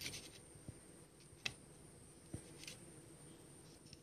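Near silence with a few faint, sparse ticks and taps, the loudest about one and a half seconds in: fingers picking small nuts and candied fruit pieces on a plate.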